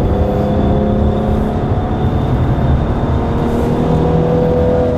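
2014 Cadillac CTS twin-turbo V6 heard from inside the cabin, pulling under throttle with its engine note rising slowly and steadily, over road and tyre rumble.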